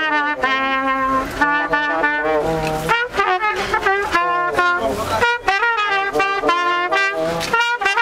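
Brass band of trumpets and trombones playing a tune in short, quickly changing notes, with drum strokes under it.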